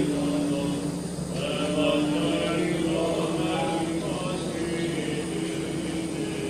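Male voices chanting Greek Orthodox Byzantine chant: a slow melody moving in steps over a steady held low drone.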